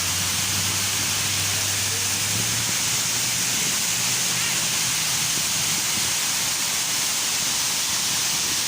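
Artificial waterfall: water pouring down in a steady, unbroken rush. A low hum sounds under it and stops about two and a half seconds in.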